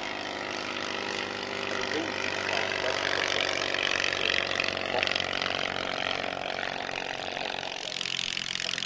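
Small light aircraft's piston engine and propeller running steadily at an even pitch, a little louder in the middle.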